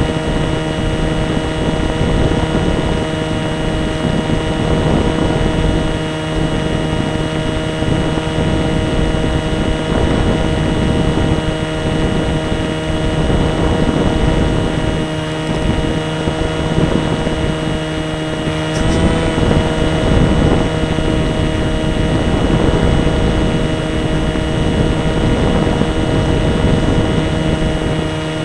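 Radio-controlled airplane's motor and propeller running at a steady pitch in flight, with wind rushing over the microphone. There is a single brief click about two-thirds of the way through.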